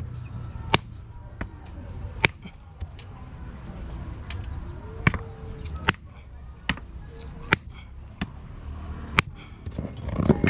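A hand sledge hammers a thin steel rod laid on a claw hammer's head, which serves as an anvil: about a dozen sharp metal-on-metal strikes, mostly about three-quarters of a second apart, with a short gap of lighter taps about a third of the way in. Near the end there is a louder scrape as the hammer is set down in the sand.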